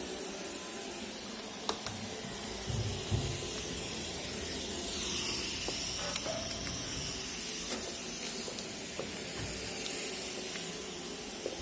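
iRobot Roomba e5 robot vacuum running: a steady hiss from its suction fan and brushes, with a few light clicks and knocks.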